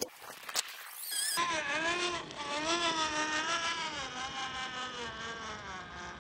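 RC rock crawler's brushless motor (Hobbywing Quickrun Fusion Pro 2300KV) whining, its pitch wavering up and down with the throttle as the truck crawls. A couple of sharp clicks come first, and the whine starts about a second and a half in.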